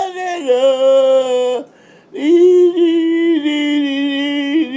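A man singing unaccompanied in long held notes that step up and down in pitch, breaking off briefly about two seconds in.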